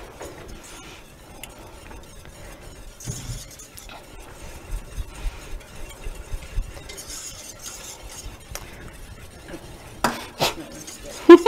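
A utensil stirring a thick sauce in a stainless steel saucepan: soft scraping and small ticks against the pot. There are a few sharp metallic clinks on the pan near the end, the last one the loudest.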